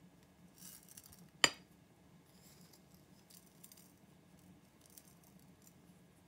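A single sharp clink against a ceramic plate about a second and a half in, as a raw steak is handled and turned on it, with faint rustling of hands and seasoning flakes around it.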